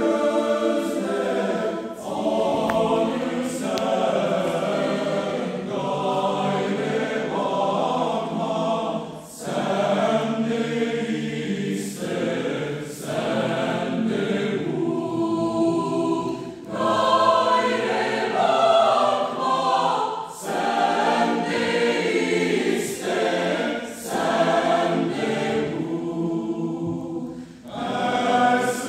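Mixed choir of women's and men's voices singing in several parts, in phrases divided by short breaths about every seven to ten seconds.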